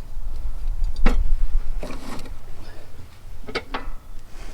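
Sharp clicks and knocks of parts and tools being handled while a garden tractor's mower deck is refitted. There is one about a second in, another near two seconds, and a quick pair a little past the middle, over a low rumble.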